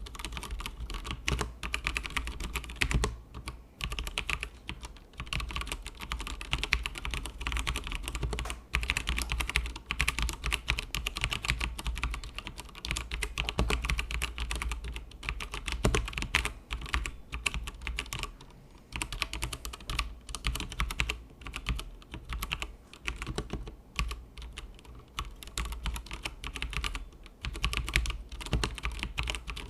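Continuous fast typing on a Tecware Phantom RGB mechanical keyboard with pre-lubed Outemu Brown tactile switches. The keystrokes come as a dense run of clacks, broken by a few short pauses.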